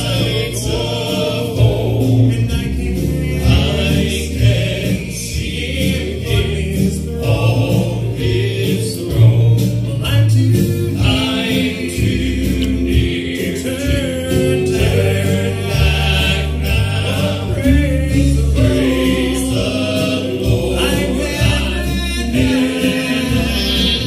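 Male gospel quartet singing in harmony, four voices amplified through handheld microphones and a PA, with continuous sustained bass notes underneath.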